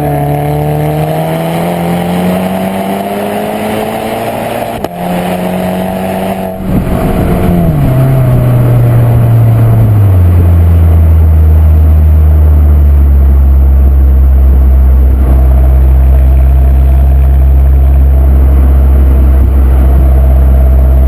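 Volkswagen Scirocco R's turbocharged four-cylinder engine revving up with a steadily rising note, broken briefly about five seconds in, then falling away from about seven seconds and settling into a steady low drone for the second half.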